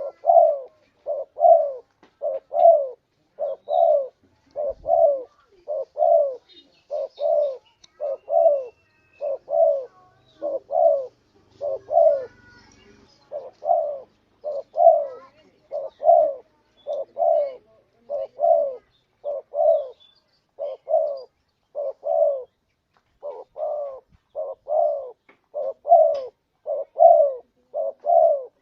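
Spotted dove (tekukur) cooing: a long series of low, soft coos repeated about twice a second, in runs broken by short pauses.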